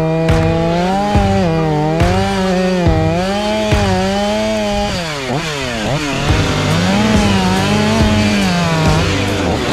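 Stihl MS 500i fuel-injected two-stroke chainsaw cutting through a locust log, its engine pitch wavering as the chain loads and frees in the wood. About five seconds in the revs fall sharply and climb back, then it settles into cutting again.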